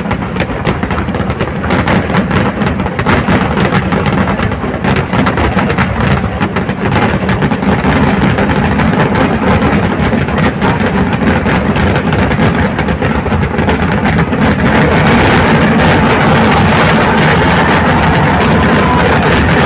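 A dense, continuous barrage of firecrackers from a Kerala temple-festival fireworks display (vedikettu): rapid overlapping cracks and bangs merging into a rolling rumble, growing a little louder near the end.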